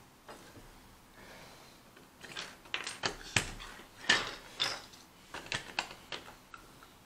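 Plastic Mega Bloks building pieces clicking and clattering against each other and the tabletop as they are handled. The clacks come in an uneven run from about two seconds in, the loudest about four seconds in.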